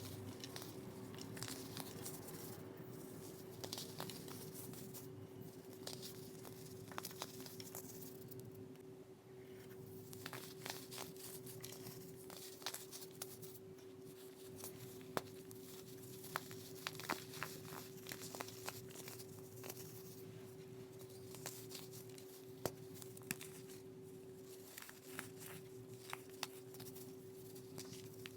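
Dried coloured baking soda being crushed and crumbled, giving many small crackles and crunches at an irregular pace. A steady low hum runs underneath.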